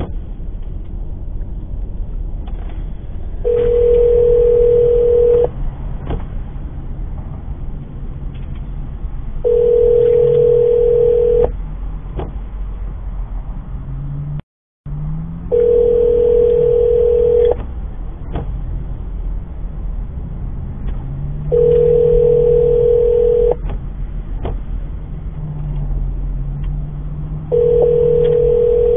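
Telephone ringback tone of an outgoing call that has not been answered: a steady two-second tone repeating every six seconds, five rings, over the steady low road and engine noise inside a moving car.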